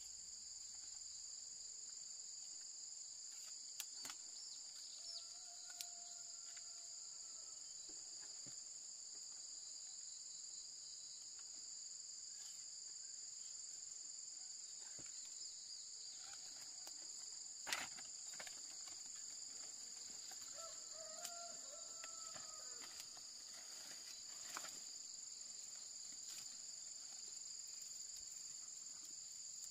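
A steady, high-pitched chorus of insects chirring. Two short, faint animal calls sound about a quarter of the way in and again about two-thirds through. A few sharp knocks fall through it, the loudest a little past halfway.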